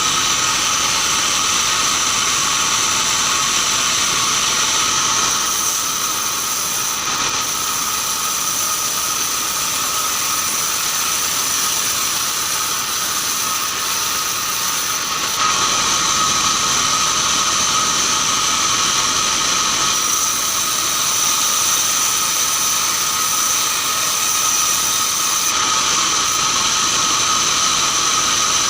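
Band sawmill sawing keranji hardwood: a loud, steady whine with two high tones held over a constant hiss.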